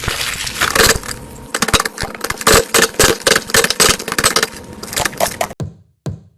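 Crunchy slime being squeezed and pressed by hand, giving dense crackling and popping that stops about five and a half seconds in.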